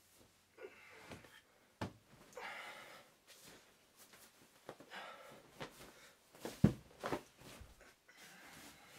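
Clothing rustling as a shirt is pulled off over the head and a T-shirt pulled on, in three short swishes, with a few sharp knocks and one louder thump about two-thirds of the way through.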